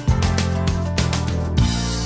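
Background music with a steady rhythm and a strong bass line, notes changing every fraction of a second.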